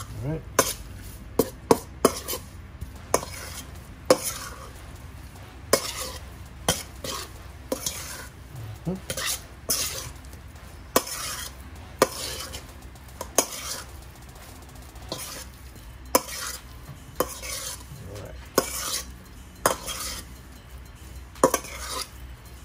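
Spice-coated raw chicken pieces being mixed by hand in a stainless steel bowl: wet squishing and slapping of the meat, with irregular sharp clanks and knocks from the metal bowl.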